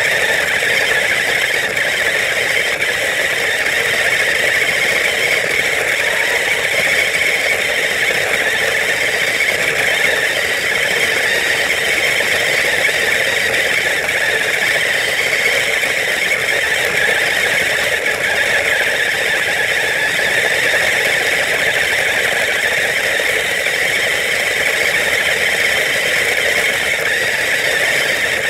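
Battery-powered ride-on toy car driving without a break: its electric gear motors whine steadily and its plastic wheels rattle over rough pavement. The car feels weighed down by a heavy load.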